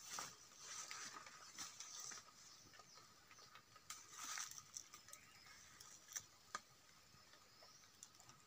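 Faint rustling with scattered light clicks, and two sharper ticks about six seconds in.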